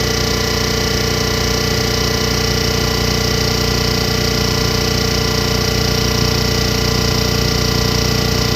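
Cylinder head surfacing machine running steadily as its cutter mills the deck of a badly warped cylinder head flat: a constant machine hum and whine with a fast, even flutter.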